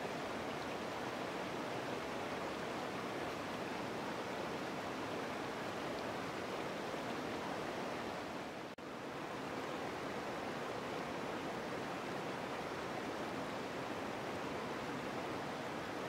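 Mountain creek rushing and splashing over boulders in small cascades, a steady rush of water. The sound cuts out for an instant a little past halfway, then resumes unchanged.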